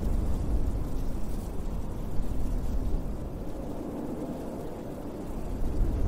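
Winter wind gusting and driving blowing snow and ice particles, a deep rushing noise that swells and eases, dropping a little past the middle and rising again near the end.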